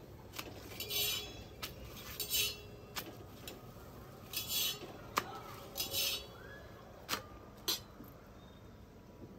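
Kitchen utensils clinking and scraping on a tawa while chapatis cook: several sharp clicks, the sharpest about five seconds in, and four short scraping swishes spread through.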